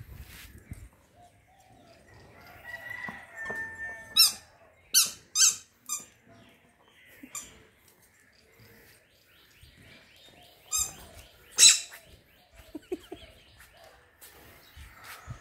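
A rubber squeaky ball squeaking in short, sharp bursts as a dog bites and noses it: four squeaks close together about four to six seconds in, and two more near eleven seconds, the last one the loudest. Birds call faintly in between.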